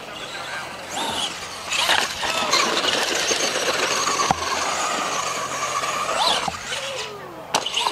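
Radio-controlled electric monster truck running hard on a dirt track: its motor whine rises and falls as it revs, over the hiss of tyres throwing dirt. Two sharp knocks come through, one about halfway and one near the end.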